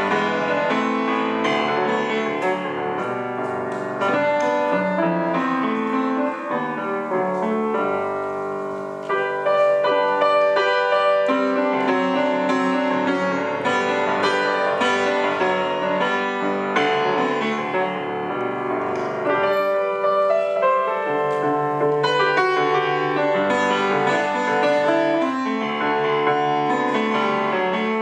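Solo grand piano playing a gato, an Argentine folk dance, in a dense run of chords and melody; it softens briefly about eight seconds in, then comes back loud.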